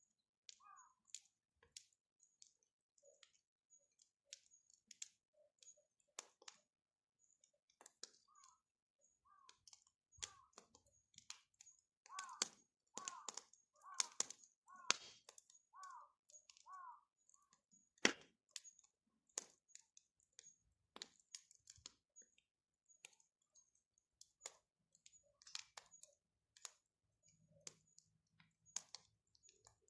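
Wood bonfire crackling, with irregular sharp pops and snaps, one louder crack about eighteen seconds in. A run of short chirping notes about halfway through.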